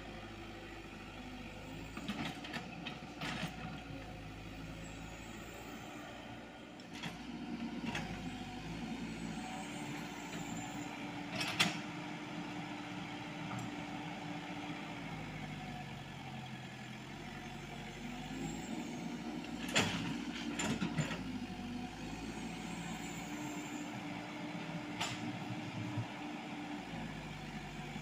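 Komatsu PC78US mini excavator's diesel engine running under working load, its pitch dipping and rising again a couple of times as the hydraulics are worked. A few sharp knocks of the machine digging through soil and rock break in over it.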